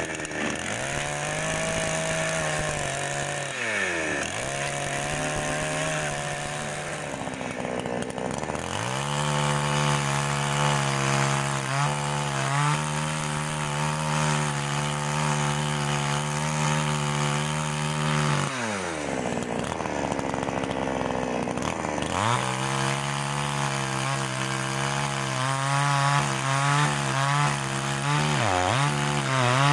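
Two-stroke gasoline chainsaw cutting through a frozen half reindeer carcass. The engine is held at high revs under load and drops toward idle and back up several times between cuts, with the longest drop a little past the middle.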